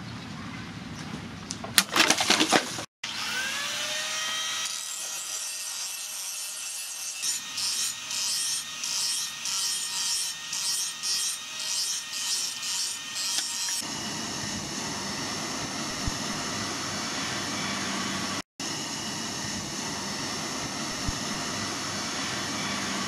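A steel knife blade chopping into a plastic water bottle with a few sharp cracks, then sawing back and forth through a plastic bottle at about one and a half strokes a second.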